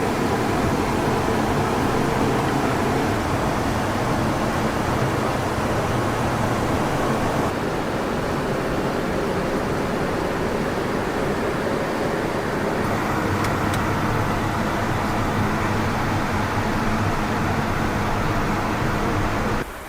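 Jet engines of a NATO E-3A AWACS aircraft, heard as a steady noise with faint steady tones. The tone shifts slightly about seven and thirteen seconds in, and the noise drops away suddenly just before the end.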